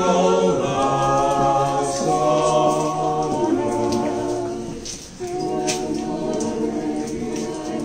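Congregation singing an Orthodox hymn a cappella, many voices together on long held notes, with a short break between phrases about five seconds in.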